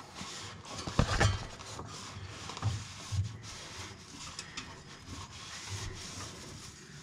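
Rubbing and scraping from hands working on a vehicle's underside, with a few soft knocks, the loudest about a second in.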